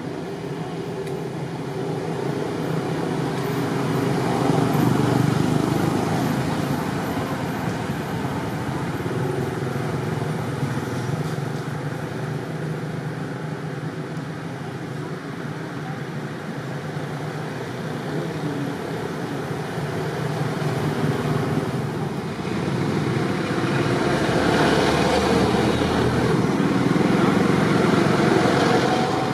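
Road traffic with motor vehicles passing, a steady rumble that swells louder about five seconds in and again over the last several seconds.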